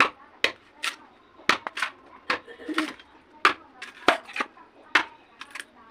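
Machete chopping into a bamboo stalk: a run of sharp cutting strikes, about two a second and a dozen in all, at an uneven pace.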